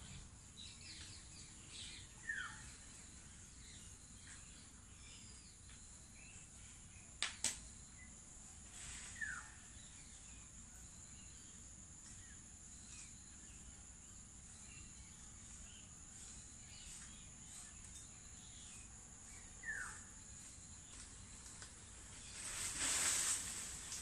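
Outdoor ambience: a steady high-pitched insect drone, with three short falling bird whistles spread through it. Two sharp clicks come about seven seconds in, and a brief burst of noise comes near the end.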